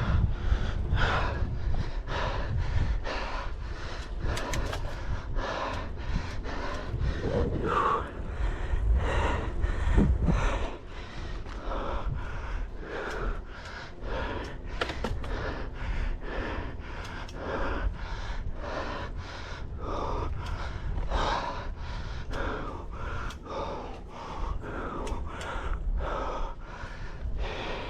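A cyclist's heavy breathing, quick and steady at about three breaths every two seconds, as he pedals. A low rumble sits under it and drops away about ten seconds in.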